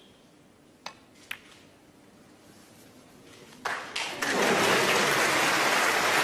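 Two sharp clicks of snooker balls about half a second apart, then an audience bursting into applause nearly four seconds in and clapping steadily.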